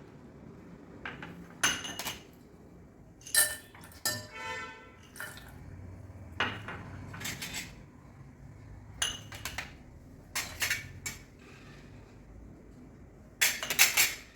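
A spoon clinking and knocking against a bowl as chopped vegetables and sprouts are mixed: irregular separate knocks, one ringing briefly about four seconds in.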